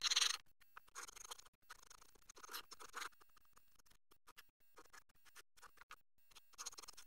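Utility knife blade cutting and scraping through a styrofoam block, in short scratchy strokes: several in the first three seconds, only faint ones in the middle, and another near the end.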